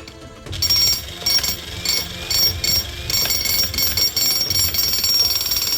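XtremepowerUS 2200W electric jackhammer with a ground-rod driving bit, hammering a ground rod into the soil. It runs in short bursts at first, then continuously from about halfway, with a steady high-pitched whine over the hammering.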